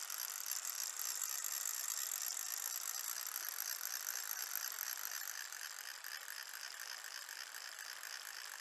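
Fishing reel giving a fast, steady ratcheting while a large brown trout is played on the line. It eases slightly about six seconds in.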